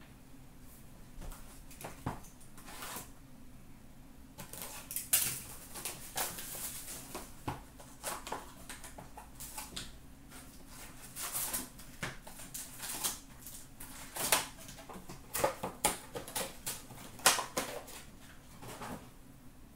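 Packs of 2019-20 Upper Deck O-Pee-Chee hockey cards being torn open, their wrappers crinkling, and the cards handled and set down, in a string of irregular sharp rustles and crackles.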